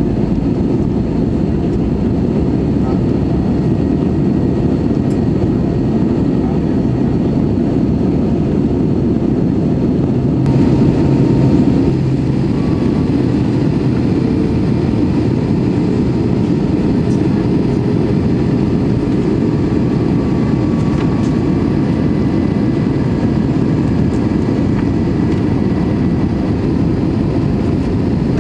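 Steady cabin roar of an Airbus A320-216 in flight, its CFM56 engines and airflow heard from inside the cabin during the descent. The roar swells slightly for a second or two about ten seconds in.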